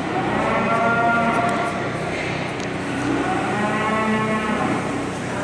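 Cattle mooing: two long moos that rise and then fall in pitch, the second starting about three seconds in.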